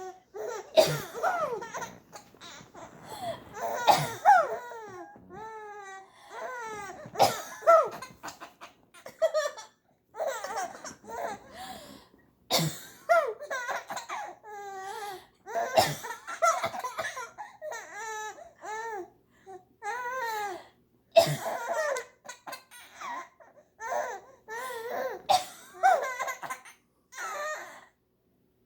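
A baby laughing in repeated fits, each set off by an adult's short, sharp fake cough every few seconds.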